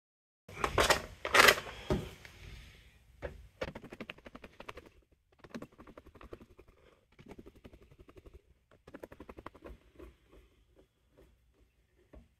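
Small countersunk screws being driven by hand into a 3D-printed plastic case, played at four times speed: a couple of sharp knocks about a second in, then a long run of rapid small clicks and scrapes.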